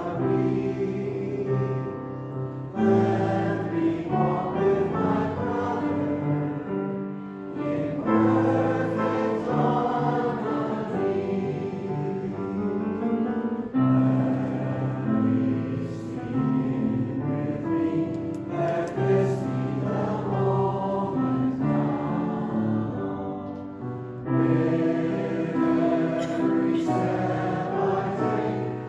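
A choir singing in long held phrases, with several short breaks between phrases.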